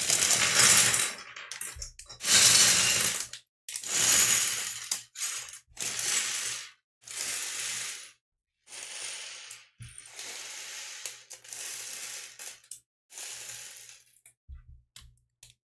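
Small plastic LEGO Technic pieces clattering and rattling onto a wooden tabletop as bags of parts are tipped out and spread by hand, with the plastic bags crinkling. It comes in a run of separate pours and rattles of a second or so each, stopping shortly before the end.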